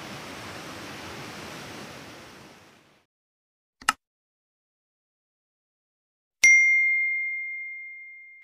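Steady outdoor background noise fades out over the first three seconds. A single sharp click comes about four seconds in, and about two and a half seconds later a bright bell ding rings and slowly dies away. These are the click and notification-bell sound effects of a subscribe-button animation.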